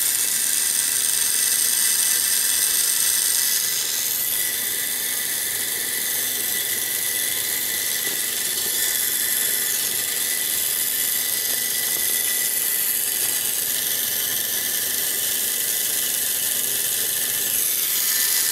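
Small electric motor whirring steadily with a high-pitched whine, running off a homemade Peltier thermoelectric generator. It drops a little in level about four seconds in and comes back up near the end.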